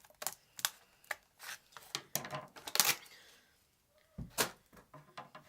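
Hard plastic blister pack being pried and bent open by hand: irregular crackling and snapping of the stiff plastic, with the sharpest snaps a bit before the three-second mark and again about a second and a half later.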